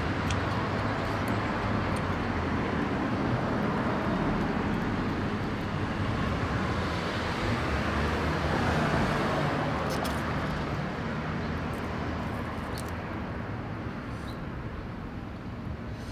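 Road traffic noise: a vehicle going by, a steady rushing that swells toward the middle and fades away near the end, with a few light clicks.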